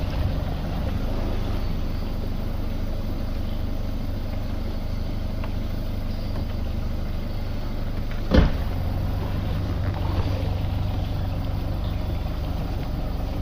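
A boat's outboard motor running steadily under way, a low even hum, with a single sharp knock about eight seconds in.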